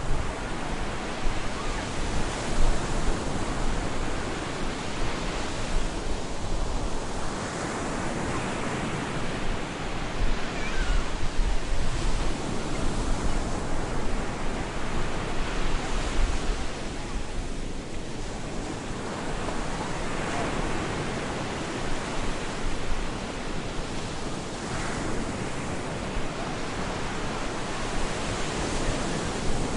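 Stormy surf breaking on a beach: a continuous roar of waves that swells and eases every few seconds.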